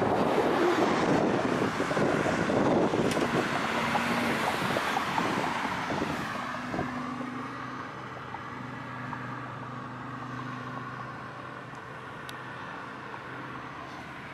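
A car passing on the road: tyre and road noise that is loudest at the start and fades away over the first six seconds or so. A faint steady hum follows.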